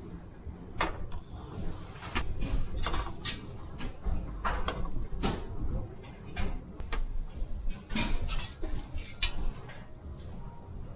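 Self-service buffet handling: metal serving tongs clinking against bowls and a steel chafing dish, with plates and a tray knocked about, a dozen or so separate sharp clinks and clatters. Under them a steady low rumble.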